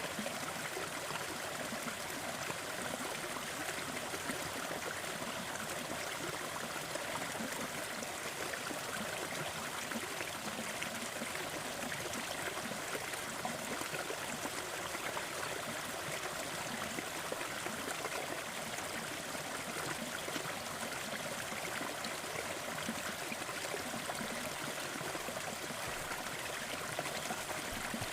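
Small waterfall splashing steadily, an even, unbroken rush of falling water.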